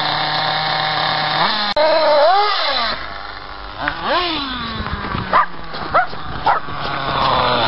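Kyosho MP7.5 Sport nitro buggy's small two-stroke glow engine running with a steady buzz, rising and falling in pitch twice. A dog barks about four times in the second half.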